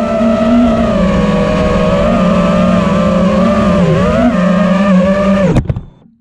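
Four brushless motors and propellers of an FPV freestyle quad (T-Motor F40 Pro IV 1950kv on 6S with HQProp Ethix P3 props) whining steadily at a fairly constant throttle, with a brief dip and rise about four seconds in. Near the end the pitch drops sharply and the motors spool down and stop as the quad comes down to the ground.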